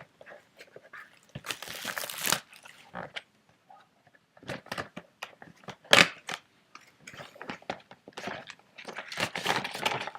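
Cardboard trading-card box being opened and the sealed card packs inside taken out and handled: irregular bursts of rustling and crackling, with one sharp snap about six seconds in.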